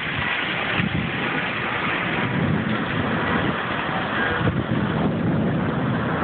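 Storm wind and heavy rain blowing steadily, with gusts buffeting the microphone.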